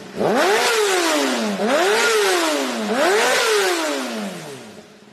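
Sport motorcycle engine free-revved three times, each rev rising quickly and falling back slowly, then dropping to a quieter idle near the end.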